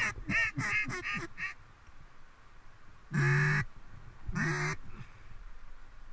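Mallard duck call blown close by: a fast run of short quacks that stops about a second and a half in, then two longer, drawn-out quacks a little after three and four seconds.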